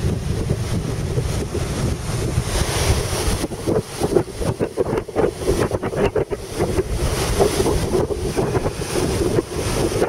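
Strong gusty wind buffeting the microphone, over the continuous wash of rough surf breaking on the beach. The gusts flutter and thump more rapidly in the second half.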